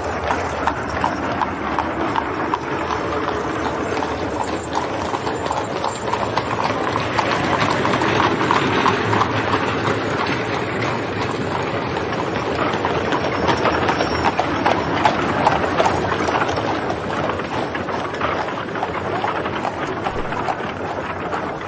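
Added street sound: the hooves of several carriage horses clip-clopping on the road surface in a dense, continuous patter, a little louder in the middle of the stretch.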